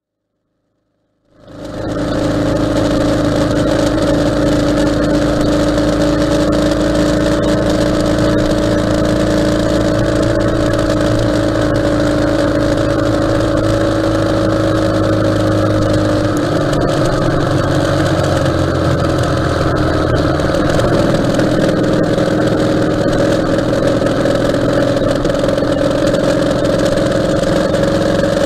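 Ural motorcycle's flat-twin engine running steadily on the road, heard from a camera mounted on the bike with wind and road noise. It fades in after about a second of silence, and its pitch drops slightly about halfway through.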